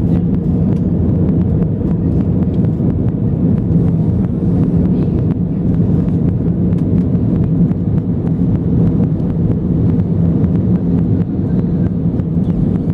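Airbus A320 jet engines running as a steady, loud low rumble, with a steady hum near the bottom and many faint, quick ticks or rattles over it.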